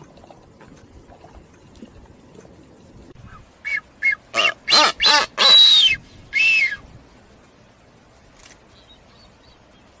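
Blue-footed boobies calling during a sky-pointing courtship display: about three and a half seconds in, a quick run of six or so short calls, then two longer calls with a high falling note.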